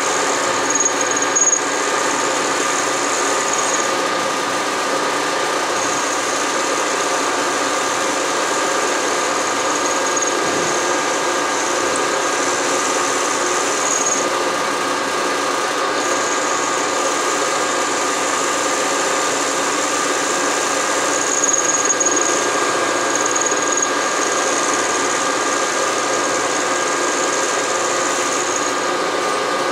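Bridgeport vertical milling machine running, its end mill taking a light cut across an aluminium block and throwing chips: a steady machining hum with a thin high squeal that comes and goes.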